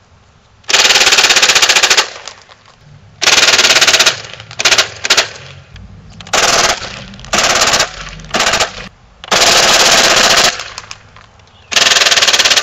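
Stock 2000 Nerf Wildfire, a battery-powered fully automatic dart blaster, firing in repeated bursts: a very fast rattle of shots. There are about ten bursts, from brief taps to runs of more than a second.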